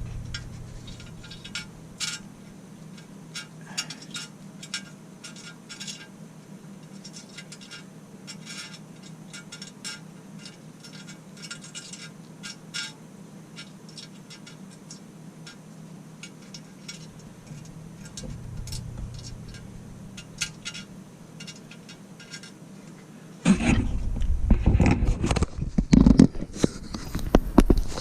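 Light clicks and clinks of small broken headlamp-lens glass pieces being handled on a bench, over a steady low hum. About 23 seconds in, much louder knocks and handling noise start.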